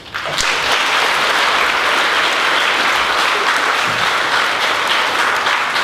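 An audience of schoolchildren applauding, with steady clapping from many hands that starts just as the recited poem ends.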